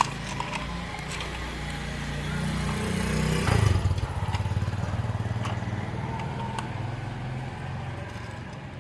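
A motor vehicle's engine running, a low steady hum that grows to its loudest about three and a half seconds in and then slowly fades, like a vehicle passing by. A few faint ticks sound over it.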